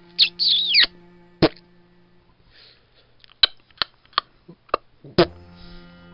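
A bench vice being wound in to press model locomotive wheels onto their axles: a short squeak near the start, then a series of sharp clicks, about six, spread over the next few seconds.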